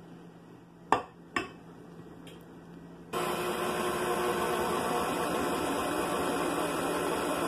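Two sharp clinks against the mixing bowl. Then, about three seconds in, a KitchenAid stand mixer's motor comes in suddenly and runs steadily, mixing flour, egg and oil into bread dough in its steel bowl.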